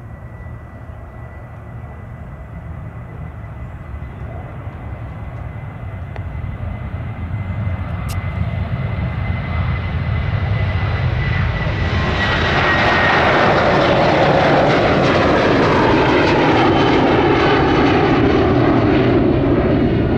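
A Ryanair Boeing 737-800's twin CFM56 turbofans at take-off thrust as it rolls, lifts off and climbs away. A rumble grows steadily louder for about twelve seconds and then holds loud, with a high whine that falls in pitch as the jet passes.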